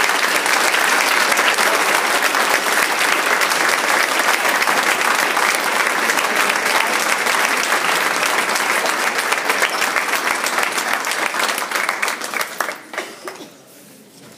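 Audience applauding, a dense sustained clapping that holds steady and then dies away about a second before the end.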